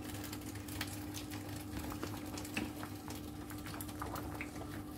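Spaghetti boiling in a steel pot: faint bubbling with scattered small ticks, over a steady low hum.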